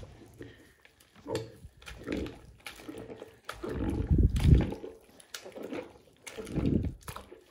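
A wet rubber toy-fish skin being scrubbed and squeezed with a wipe in a sink of soapy water: irregular squelching and sloshing, loudest about four seconds in.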